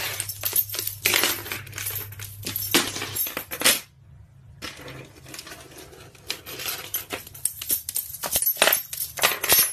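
Rapid, irregular clinking and rattling of small hard objects knocking together, with a brief gap about four seconds in.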